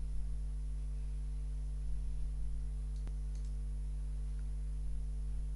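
Steady low electrical hum from the recording setup, with a single sharp click about three seconds in and a faint tick just after.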